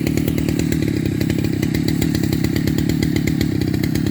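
Two-stroke chainsaw engine running steadily at a fast idle, warming up before the cut.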